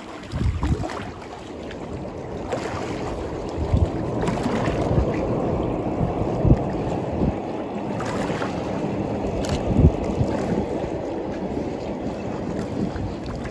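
Wind buffeting the microphone over choppy river water lapping against the bank, with a few sudden low thumps from gusts or waves. Any sound of the distant train on the bridge is lost under the wind.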